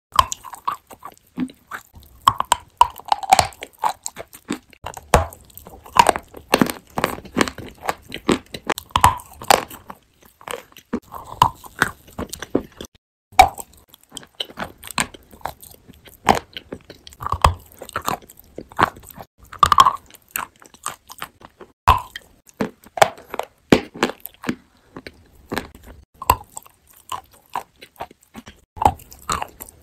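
Close-miked biting and chewing of a crunchy food: irregular sharp crunches and crackles with wet mouth sounds between them.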